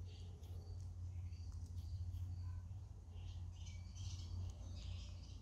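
Faint, short high chirps from a small songbird, scattered through, over a low steady hum.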